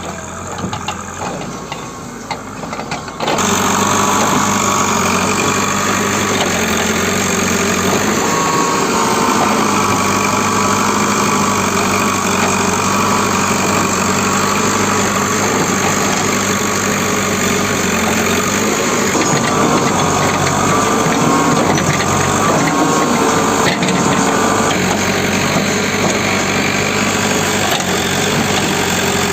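Diesel engines of a JCB backhoe loader and tractors running steadily while loading manure, getting louder about three seconds in and staying steady after that.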